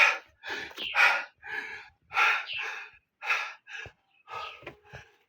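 A person's short breathy vocal sounds, about two a second.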